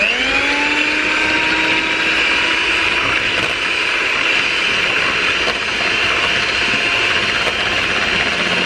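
Electric hand mixer switched on and whipping egg whites in a stainless steel bowl. The motor comes on suddenly, its whine rising quickly in pitch as it spins up, then runs steady at speed while the whites turn to foam.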